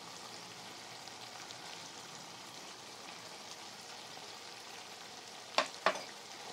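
Chicken liver masala sizzling and bubbling in a frying pan, a steady frying hiss. Near the end come two sharp clicks about a third of a second apart.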